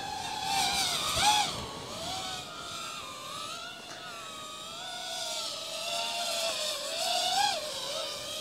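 FPV racing quadcopter's brushless motors whining in flight. The pitch keeps rising and falling with the throttle, with quick upward swoops about a second in and again near the end.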